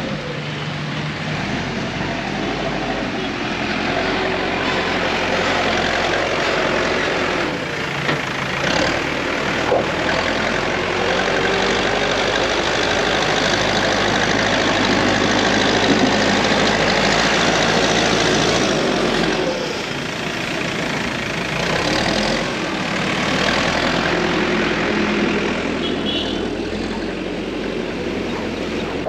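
Heavy vehicle engine running steadily under a dense wash of noise, its hum dipping and returning a few times.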